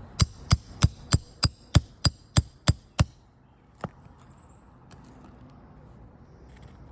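Roofing hammer striking a metal nail puller to drive it under a roofing nail: ten quick, evenly spaced ringing blows, about three a second, then one lighter tap about a second later.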